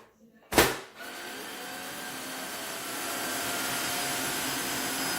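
Tineco cordless wet-dry floor cleaner switched on in auto mode: a sharp click just after half a second, then its motor starts and runs steadily with a faint whine, growing a little louder over the next couple of seconds before it levels off.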